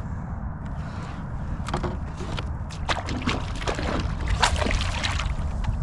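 Water sloshing and dripping around a kayak, with scattered knocks and clicks from handling aboard, busiest in the second half, over a steady low rumble.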